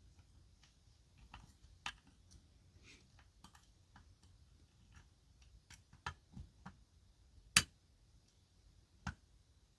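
Faint, irregular metallic clicks of a lock pick and tension wrench working the pins of a pin-tumbler challenge lock, with a few sharper clicks, the loudest about three-quarters of the way through.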